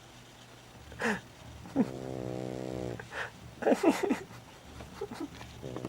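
A small dog snoring in her sleep: short, sharp snorts and one steady buzzing snore lasting about a second.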